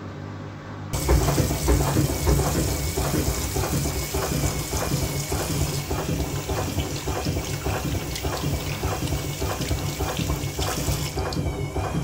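Old Arçelik front-loading washing machine running: a steady hum, then about a second in a sudden, loud rush of water in the drum, with sloshing and a regular knock a few times a second.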